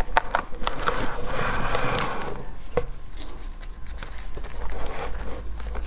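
Gloved hands prying a durian's spiky husk apart and pulling at the flesh: plastic gloves crinkling and the husk rustling and creaking, with scattered sharp clicks and crackles. The rustling is busiest in the first two seconds.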